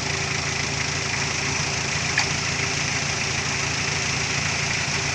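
A vehicle engine running steadily with no change in speed, and a single sharp click about two seconds in.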